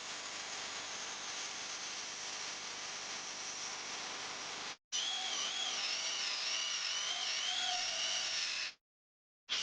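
16 V cordless drill motor running: a steady run of about five seconds, a brief stop, then a louder run with a whine that wavers in pitch, which cuts off about a second before a short final burst.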